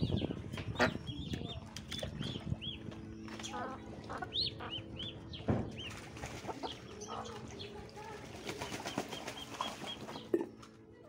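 Poultry feeding together, with ducklings and chicks peeping in runs of short, high, arched peeps among hens clucking, and scattered sharp clicks and scuffles.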